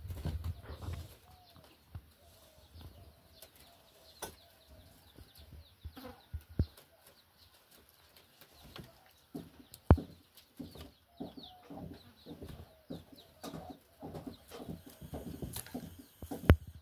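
Chickens clucking in the background, with a few sharp knocks, the loudest about ten seconds in and another just before the end.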